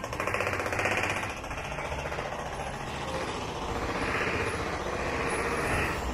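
Steady, very rapid mechanical rattling or hammering.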